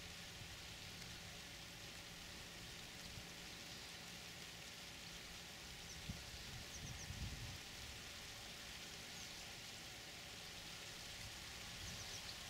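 Light rain hissing steadily, with a few soft low bumps around the middle and near the end.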